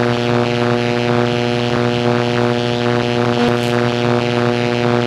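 Electric buzz sound effect: a steady low hum with a pulsing crackle about three times a second.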